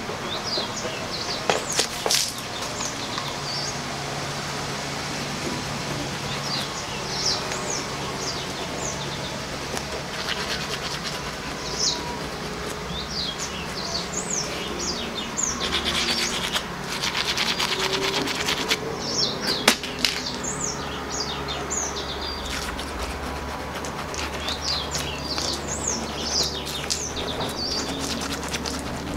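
Small birds chirping over and over, with a stretch of toothbrush scrubbing on teeth in the middle. A couple of sharp knocks, the louder one near the end of the scrubbing.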